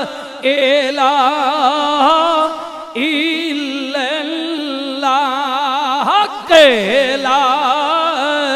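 Male voice singing a drawn-out devotional refrain in long held notes with heavy vibrato. About six seconds in comes a loud sweep down in pitch.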